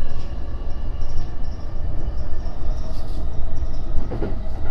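E233-3000 series electric train running along the track: a loud low rumble of wheels on rail with a steady whine of several held tones.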